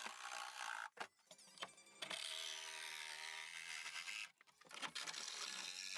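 Cordless jigsaw cutting a curved opening in thin 1/4-inch plywood. The saw is faint and drops out briefly a few times.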